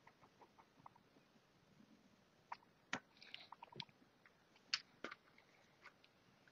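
Faint, scattered small clicks and ticks from a small screwdriver and tiny screws being worked into a mobile phone's housing, with a quick cluster of them about halfway through.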